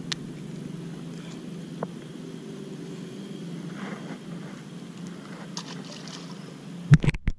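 Steady low rumble of wind on the microphone, with a small splash as a small largemouth bass is tossed back into the pond about five to six seconds in. A few loud knocks from handling the camera come near the end.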